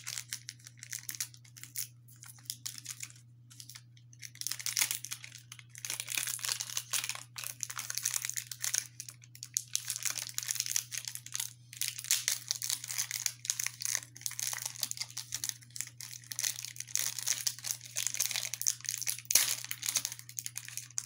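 A Bakugan Battle Planet trading-card booster pack being crinkled and torn open by hand, in irregular bursts of crackling wrapper noise, over a steady low hum.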